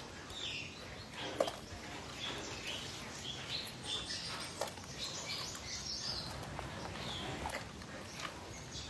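Scattered clicks, taps and scratching as live, string-tied mud crabs are handled and shifted in a plastic crate, with a sharper click about a second and a half in.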